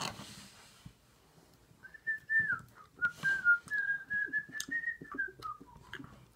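A person whistling a short tune, a single clear tone stepping up and down, starting about two seconds in and lasting about three and a half seconds. Beneath it are faint soft sounds of hands working kinetic sand.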